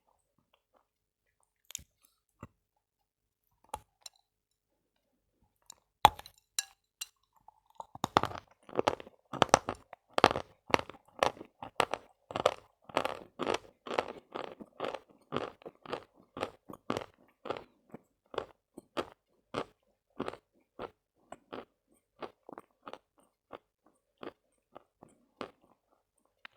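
A person biting into and chewing a lump of Khrapovsky chalk with crisp crunches: a few faint clicks at first, a sharp bite about six seconds in, then steady chewing at about two to three crunches a second from about eight seconds in, thinning out near the end.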